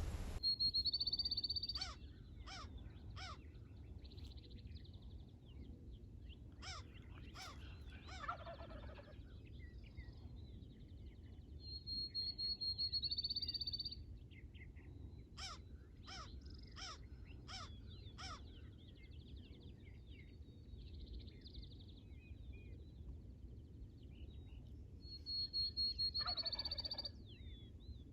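Distant Rio Grande wild turkeys gobbling from the roost, several bouts of calls, with other birds trilling high-pitched at intervals.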